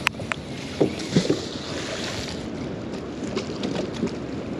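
Wind buffeting the microphone over choppy water lapping against a small boat, with a couple of light knocks right at the start.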